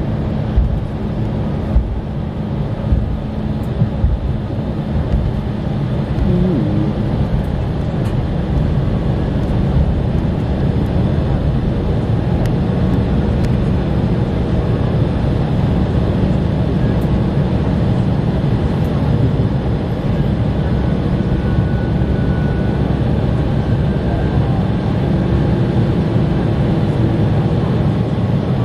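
Cabin noise of an Embraer E-170 taxiing: a steady rumble and hum from its two GE CF34-8E5 turbofan engines, heard from a window seat over the wing. A few thumps come in the first four seconds.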